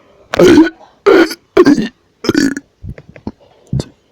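A person burping loudly four times in quick succession, each burp about a third of a second long, followed by a few shorter, softer burps. The burps are brought on, as he puts it, by a bad combination of snacks.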